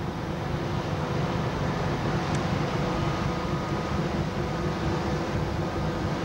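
Steady low rumble of a ferry under way, its engines and machinery heard from the open deck, with a faint steady hum over it.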